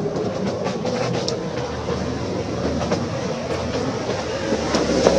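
A steady low mechanical rumble, like a running engine, with scattered light clicks over it.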